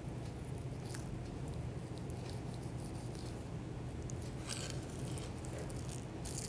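Flexible fillet knife cutting and scraping along a raw salmon fillet on a plastic cutting board while rib bones are trimmed away, heard as faint scattered clicks and short scrapes. A steady low hum lies underneath.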